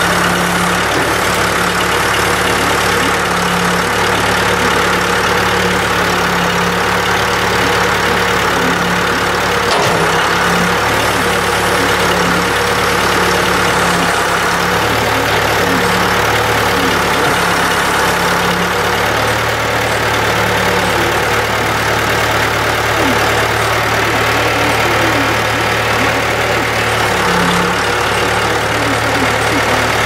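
Case 336 four-cylinder diesel engine of a 1976 Case 680E backhoe running steadily while the backhoe arm and bucket are worked hydraulically.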